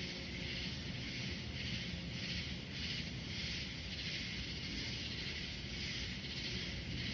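Chorus of night insects in a forest, a dense high buzzing that swells and fades in a regular pulse, with a low rumble underneath.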